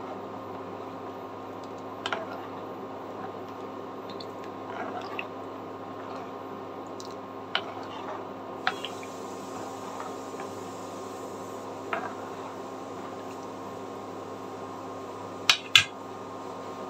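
Steel spoon stirring hand-cut semai noodles through thick milk in a non-stick pan: soft, wet squishing, with a few light clicks of the spoon against the pan and two sharper clicks close together near the end. Under it runs a steady low hum.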